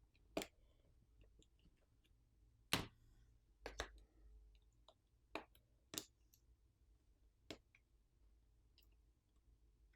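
Sparse sharp clicks and taps of small hand tools and loosened plastic and metal parts during a smartphone teardown, about seven at irregular intervals, two of them in quick succession near the middle.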